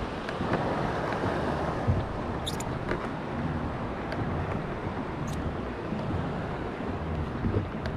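Wind on the microphone over water lapping around a kayak, with a few small clicks and splashes scattered through.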